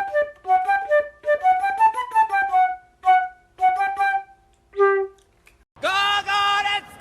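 Flute melody of quick, separate notes, used as a ringtone, that climbs and falls and ends on a held note about five seconds in. A fuller-toned melody of steadier notes starts near the end.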